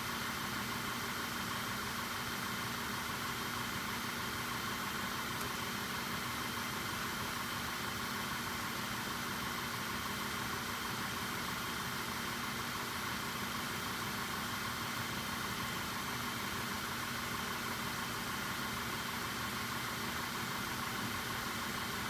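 Volkswagen Jetta GLI engine idling steadily, heard faintly and evenly without revving.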